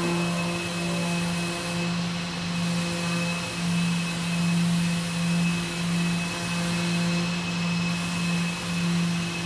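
Two Mirka AIROS electric orbital sanding heads on robot arms running against wooden bench slats. They make a steady motor hum and whine over a hiss, swelling gently in loudness as the pads move along the slats.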